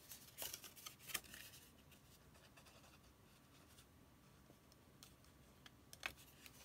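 Near silence with faint paper handling: a few soft rustles and taps of a folded cardstock pop-up piece being handled and glued, in the first second or so and again near the end.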